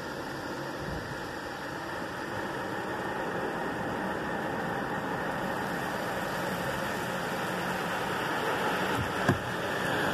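Automatic car wash running, heard from inside the car: a steady hiss of machinery and water spray that grows louder as the spray reaches the windscreen, with one short knock about nine seconds in.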